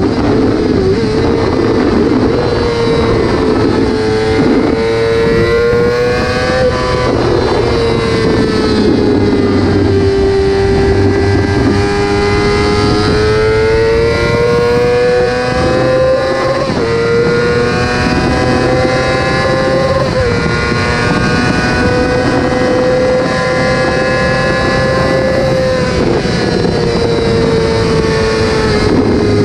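Yamaha R6 RJ15's 599 cc inline-four engine running at high, fairly steady revs, its high-pitched note drifting slowly up and down with a few brief dips.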